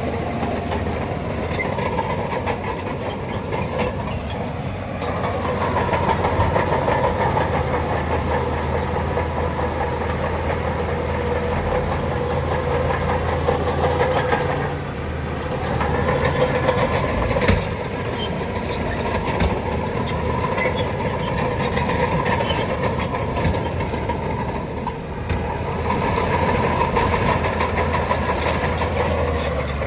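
Shantui bulldozer's diesel engine running steadily, swelling and easing as the load comes on and off, with a sharp metallic knock a little past halfway.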